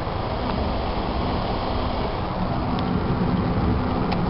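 Steady engine hum and road noise of a moving van, heard from inside the cabin.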